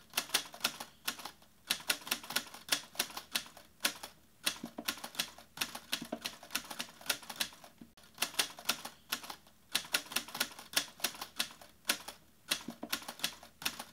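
Typewriter sound effect: keys clacking in quick, uneven runs with a few short breaks, as text types itself onto the screen.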